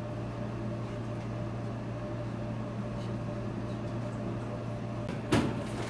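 Steady mechanical hum of kitchen equipment, with one brief loud noise about five seconds in.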